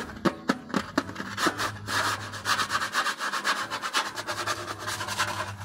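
Open-back banjo: a few plucked notes about three a second, then from about two seconds in a fast, scratchy rubbing on the instrument with a low string note ringing underneath.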